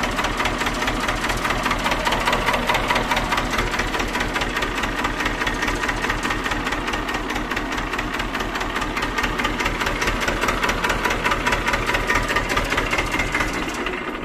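TAFE 25 DI tractor's two-cylinder Simpsons S217 diesel engine running steadily, with a fast, even diesel knock.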